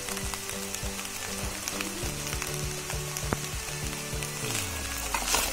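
Poha (flattened rice) sizzling gently as it fries in a steel pan over the flame, with a few light clicks.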